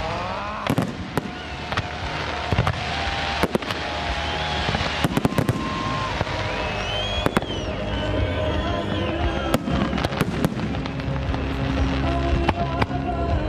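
Aerial fireworks shells bursting in a rapid, irregular string of sharp bangs, about twenty across a dozen seconds.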